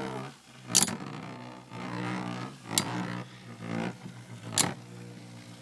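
Two metal Beyblade spinning tops circling in a plastic stadium, clashing with a sharp metallic click three times, about every two seconds.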